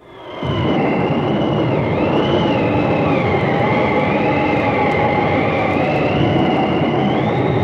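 Steady rushing noise with a thin high whistle wavering up and down above it, fading in over the first half-second: a sound-effect intro at the start of a heavy metal recording.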